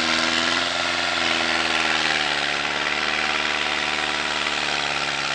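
A heavy vehicle's engine running steadily at low speed, its pitch dipping slightly about a second in.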